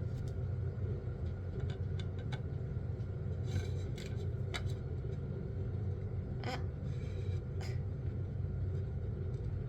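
Steady low rumble of a moving vehicle, with a few faint clicks scattered through it.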